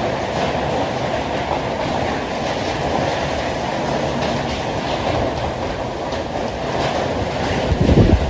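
Heavy rain pouring steadily onto a corrugated metal porch roof, with a brief low rumble near the end.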